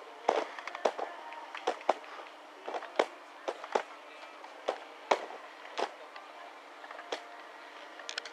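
Slalom gate poles knocked aside by a skier: sharp, irregular clacks about every half second to a second, over the scrape of ski edges on hard snow.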